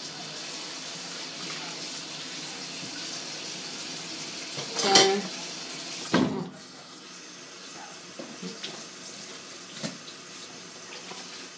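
Kitchen tap running into the sink during hand dishwashing, with a ringing clink of a dish about five seconds in and a knock about a second later, after which the running water stops. A few light clatters of dishes follow.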